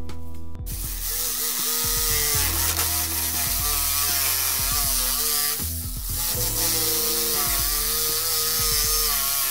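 Corded electric jigsaw cutting through a wooden board. The blade starts about half a second in, and its motor pitch wavers with the load. It eases off for a moment a little past the middle, then cuts on.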